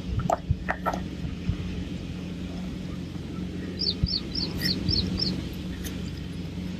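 A few sharp clicks in the first second. Then, about four seconds in, a bird gives a quick run of six high chirps over a steady low hum.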